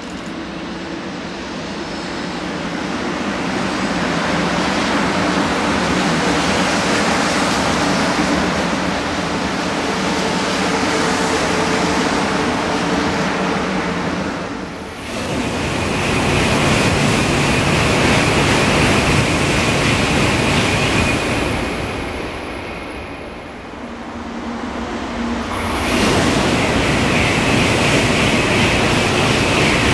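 Shinkansen bullet trains running through a station without stopping: a loud rushing of air and wheels on rail as the 500 Series Type EVA goes by. The sound breaks off suddenly a little before halfway. A second rush then rises, dies down, and swells again as an N700-series train sweeps past near the end, with a thin high whine over the rush.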